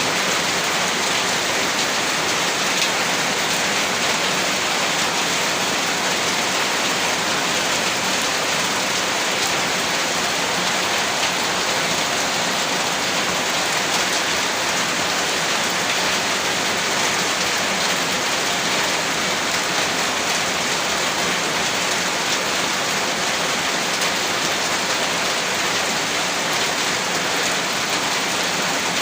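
Heavy rain falling steadily on a rooftop, a dense even hiss with no distinct drops or changes.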